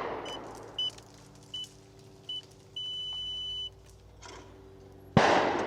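Four short electronic beeps about three-quarters of a second apart, then one longer beep, over a faint steady hum. About five seconds in comes a loud shotgun shot with a long ringing tail.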